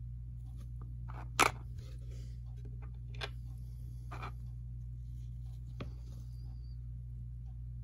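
Light clicks and rustles from tiny 1/64-scale figures and their clear plastic display tray being handled by gloved fingers, with one sharp click about a second and a half in and a few softer ones later, over a steady low hum.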